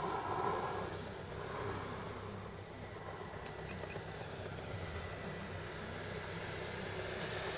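Electric outrunner motor and three-blade propeller of a radio-controlled Corsair model in flight, a steady whine heard from a distance. It fades in the middle and grows again near the end as the model comes closer.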